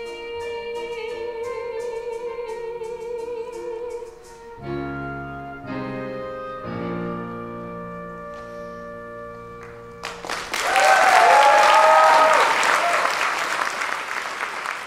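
A female singer holds one long note with vibrato over a lightly ticking accompaniment, then the accompaniment plays a few held closing chords. About ten seconds in, the audience breaks into loud applause with cheers and whoops.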